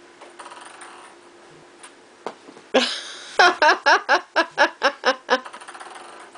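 A person laughing hard: a loud burst, then about nine quick "ha"s over two seconds, with a couple of light clicks shortly before.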